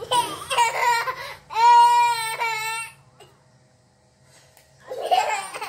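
A young child crying out in high-pitched wails: a choppy burst at first, then one long held wail, and a shorter cry near the end.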